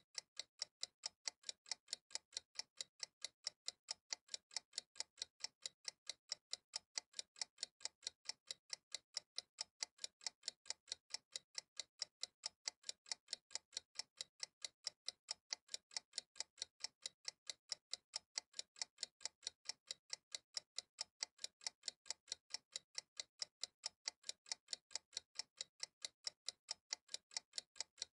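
Steady, evenly spaced ticking, about four sharp ticks a second, unbroken throughout.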